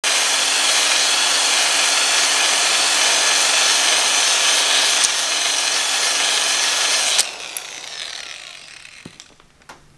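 Electric drill spinning a cylinder hone inside a cast-iron engine cylinder bore, a steady motor whine over the scraping of the stones on the bore wall. The drill stops about seven seconds in, followed by a few light clicks.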